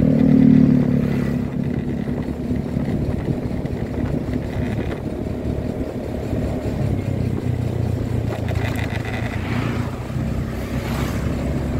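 Motorcycle engine running on the move, louder in the first second and then steady, with tyre and road noise from a wet road and other traffic passing.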